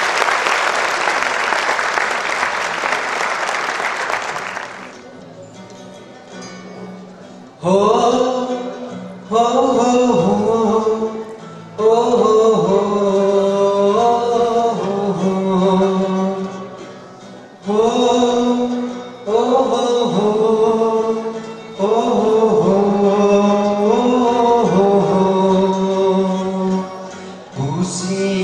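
Audience applause that dies away about five seconds in. About three seconds later a song begins, with a voice singing over instrumental accompaniment.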